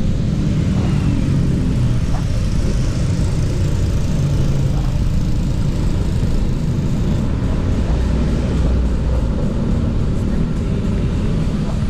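Steady low wind rumble on an action camera's microphone while riding an electric scooter, mixed with the sound of motorcycle and car traffic on the road.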